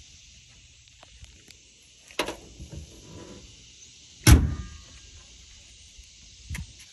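Three thuds of car bodywork being shut or knocked, the loudest a heavy slam about four seconds in, over the steady chirping of crickets.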